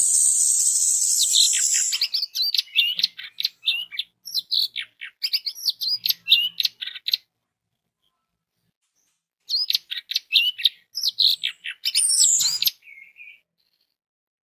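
Orange-headed thrush (anis merah) singing loud, fast, varied phrases of quick high whistled and warbled notes in two bursts separated by a pause of about two seconds. It opens with a loud steady hiss lasting about two seconds.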